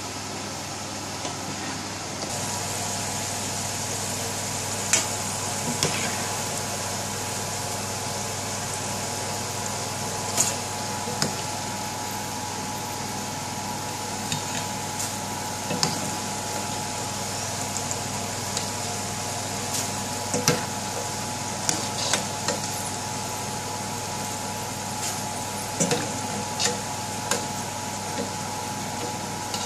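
Potato chips deep-frying in a pan of hot oil, a steady sizzle over a constant hum, with scattered sharp clicks and knocks of a metal spoon against the pan and steel colander.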